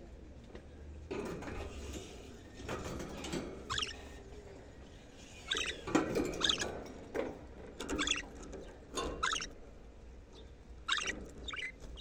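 Budgerigars chattering: runs of short, high chirps and warbles, coming in clusters through the middle and again near the end.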